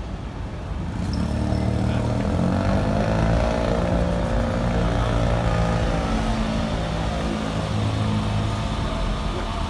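A large vehicle's engine running, its pitch climbing gently a couple of seconds in and then holding steady, over street rumble.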